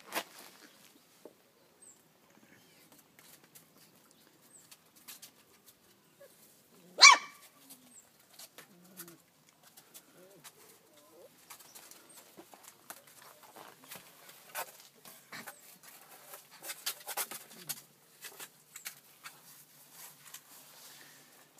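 A litter of four-week-old Doberman puppies moving about, with one short, loud yelp about seven seconds in. Later comes a busier stretch of small scratching and scuffling clicks as the pups clamber over each other on cardboard.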